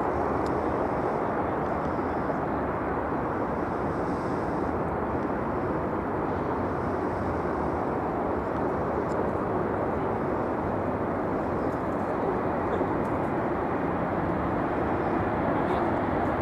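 Jet airliner engines running: a steady, even noise with no pauses.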